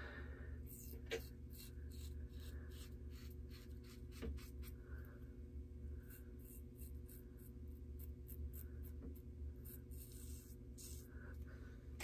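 Rockwell 6C double-edge safety razor cutting short hair on a lathered scalp around the ear: a quick series of short, faint scratchy strokes, one to three a second.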